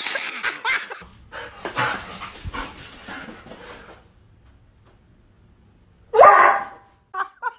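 A border collie barks once, loudly, about six seconds in, followed by two short yips.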